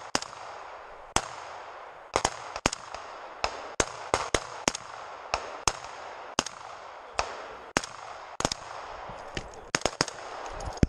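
Rifle fire during a squad live-fire drill: about twenty shots in irregular single shots and quick pairs, roughly two a second, some louder than others as several rifles fire, each crack ringing briefly through the trees.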